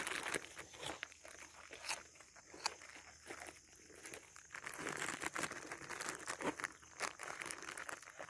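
Plastic bag of baby carrots crinkling and rustling irregularly as a goat pushes its muzzle into it, with scattered sharp crackles.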